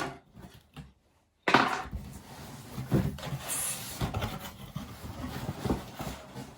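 The keyboard's cardboard box being handled: continuous rubbing and scraping with scattered light knocks, starting abruptly after a brief dead-silent gap about one and a half seconds in.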